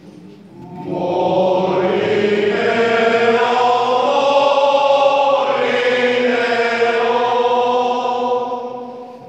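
Male choir singing long sustained notes in a stone church. The singing swells in about a second in and fades away near the end.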